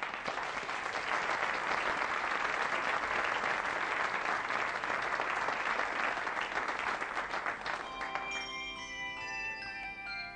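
Studio audience applause lasting about eight seconds, then a children's handchime choir starts to play, several ringing notes sounding together as new ones enter.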